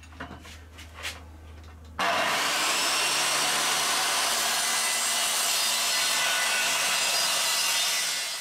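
Old corded circular saw with its blade set at a 10-degree bevel, starting about two seconds in and cutting straight through a plywood panel with a loud, steady cutting noise, then dying away near the end as the cut finishes.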